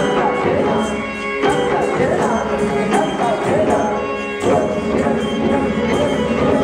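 Recorded Indian classical dance music played over a hall's sound system: a melody that bends in pitch over drum strokes and jingling percussion.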